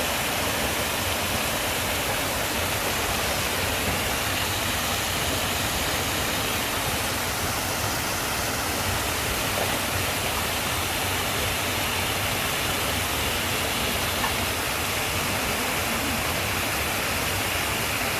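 Waterfall rushing: a steady, loud roar of falling water.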